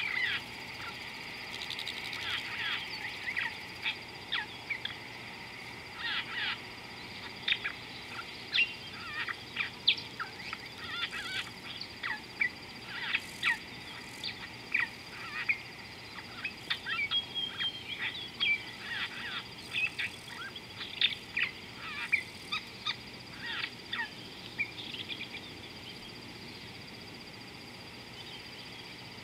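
A chorus of wild birds calling in many short, rapid chirps and calls that thin out over the last few seconds, over a steady high-pitched tone.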